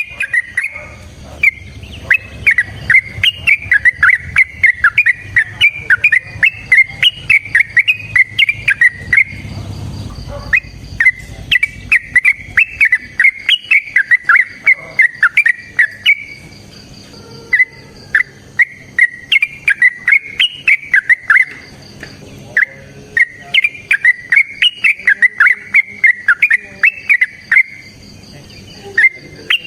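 Yellow-vented bulbul (trucukan) singing its long, rapid fighting song: fast strings of sharp chattering notes in phrases of several seconds, broken by short pauses, a challenge call used to lure and provoke other bulbuls. Faint steady high tones run underneath.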